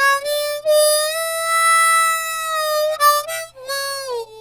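Intro music on a solo harmonica: a short phrase of reedy notes, with one long held note in the middle and a note that slides down in pitch near the end.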